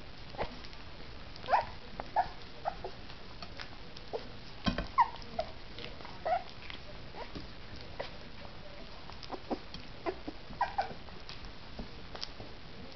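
Two three-week-old puppies eating wet mush from a plate: irregular short, high squeaks and little whimpers mixed with sharp wet smacking and lapping clicks.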